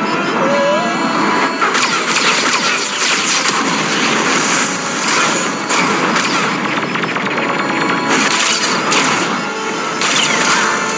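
Flamethrower blasts rushing and crackling in repeated surges, mixed over a dramatic orchestral film score.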